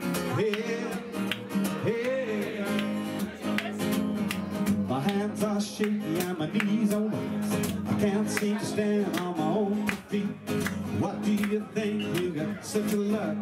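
Live acoustic guitar strummed steadily, with a voice singing over it.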